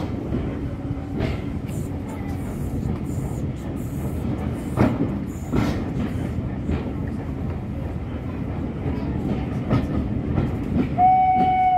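Steam-hauled train moving off, heard from an open carriage window: a steady rumble of the coaches with scattered clicks from the wheels. Near the end the LMS 4F 0-6-0 locomotive's steam whistle sounds, one steady high tone and the loudest sound here.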